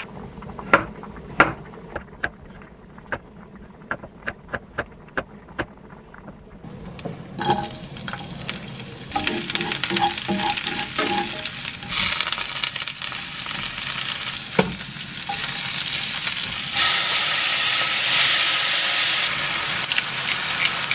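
A kitchen knife slicing garlic cloves on a wooden cutting board, a sharp chop about two or three times a second. About seven seconds in this gives way to garlic frying in oil in a pan, sizzling as it is stirred with chopsticks. The sizzle grows louder when spaghetti is tossed in the pan.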